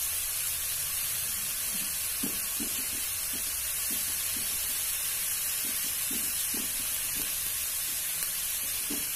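Chopped onion and green chillies sizzling in hot oil in a pan, a steady hiss, with irregular soft taps of a spoon or spatula stirring through it from about two seconds in.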